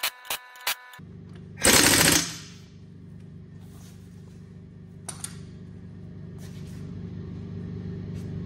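A ratchet wrench clicking quickly, about five clicks a second, as a bolt is run in. About a second in a steady low machine hum starts and runs on, with a loud rushing burst just after it starts and a shorter one later.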